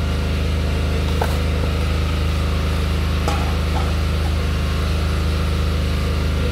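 An engine running steadily at a constant speed, a low unchanging hum, with two faint knocks about one and three seconds in.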